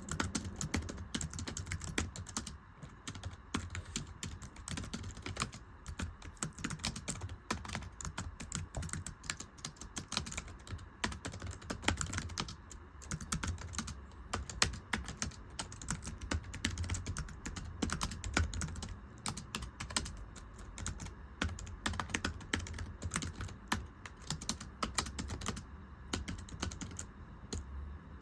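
Continuous rapid typing on a thin, low-profile computer keyboard: a dense, steady patter of light, slappy key clicks.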